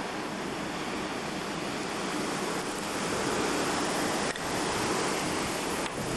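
Blizzard wind blowing hard across the microphone, a steady rushing noise that swells slightly midway and drops out briefly twice near the end.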